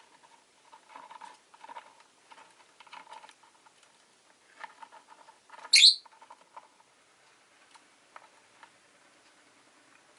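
Rosy-faced lovebirds making soft clicking and scratching sounds in short irregular bursts, with one loud, sharp, shrill chirp about six seconds in.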